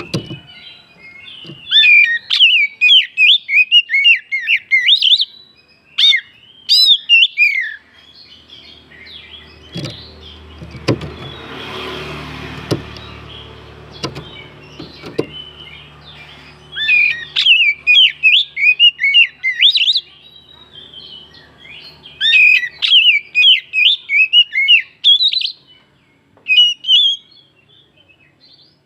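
Oriental magpie-robin (kacer) singing loud bursts of rapid, varied whistled phrases, broken by pauses. Through the middle stretch the song drops out, and a low steady hum with several sharp clicks takes its place.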